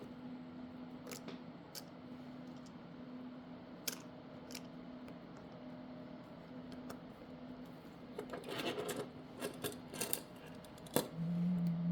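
Small sharp clicks and taps of tools and plastic and metal parts being handled on a smartphone during repair, scattered at first and then a quick cluster of ticks, with a short low hum near the end.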